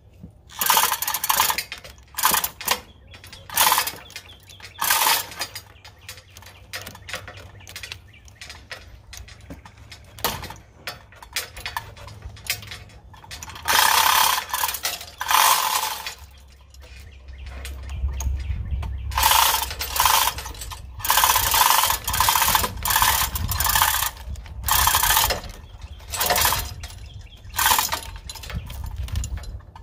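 Manual chain hoist being worked with repeated pulls on its hand chain, the chain rattling through the hoist in short spells of about half a second to a second, with pauses between them.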